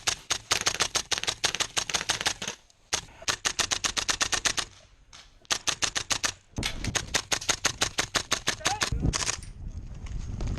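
Gas blowback airsoft rifle firing long full-auto strings of sharp, rapid shots, about ten a second, broken by short pauses between bursts.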